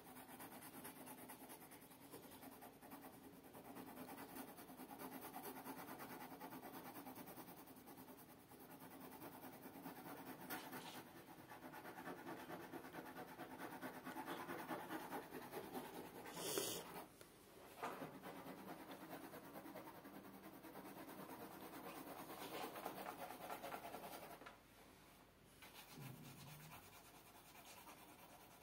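Faint, continuous scratching and rubbing of a graphite pencil shading on a large sheet of drawing paper. About halfway through there is one sharper click, and near the end the scratching briefly drops away.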